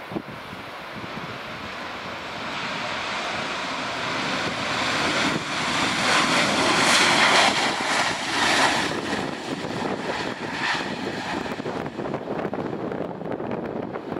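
Boeing 737-800's CFM56 jet engines roaring as the airliner rolls out along the runway just after touchdown. The roar builds, peaks loudest in the middle as the jet passes, then eases off as it moves away.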